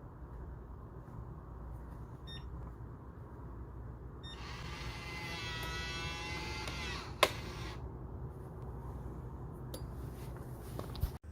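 Electronic smart-lock deadbolt motor whirring for about three and a half seconds, ending in a sharp click; another click near the end.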